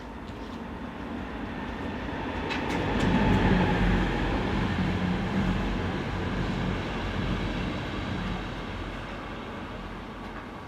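A vehicle passing by: a steady rumble with some humming tones that rises to its loudest about three and a half seconds in, then fades away.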